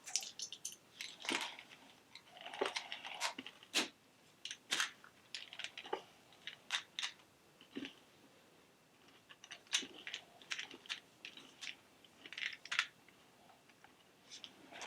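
A mouthful of five Skittles being chewed close to the microphone: irregular wet crunching and clicking as the candy shells break.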